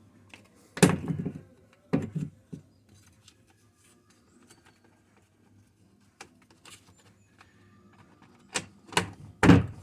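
Sharp knocks and clunks of brush cutter parts being handled and fitted back together: two about a second apart near the start, then three in quick succession near the end, with quiet between.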